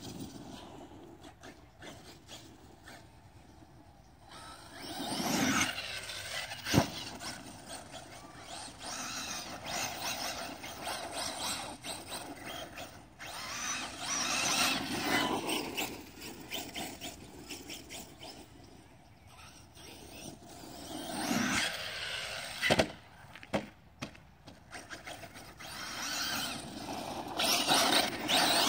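Arrma Talion brushless electric RC truggy driving on grass: motor and drivetrain whine rising and falling in pitch as it speeds up and slows down, with tyre noise. Sharp knocks come about seven seconds in and again about twenty-three seconds in.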